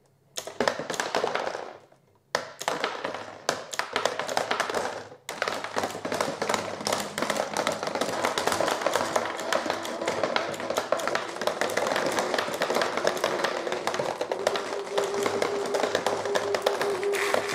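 3D-printed marble sorting machine running: marbles clacking along a chain conveyor while a solenoid snaps to reject marbles, a rapid clatter of clicks. The clatter stops briefly a few times in the first five seconds, then runs on and grows denser as the speed rises from under two to about five marbles a second. A steady motor hum comes in near the end.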